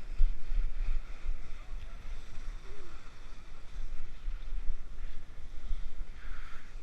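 Wind buffeting the microphone in uneven low rumbling gusts, over a steady rushing hiss.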